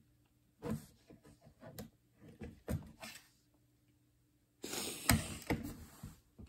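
Plastic Lego pieces being handled: a few light clicks and knocks, then about a second and a half of rustling and clattering near the end.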